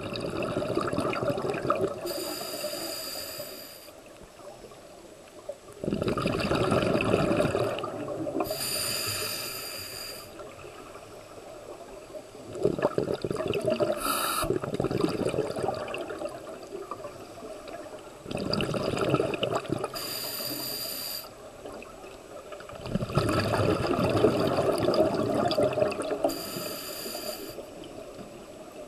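Scuba breathing through a regulator underwater: about five slow breath cycles, each a rush of exhaled bubbles followed by a shorter hissing inhale.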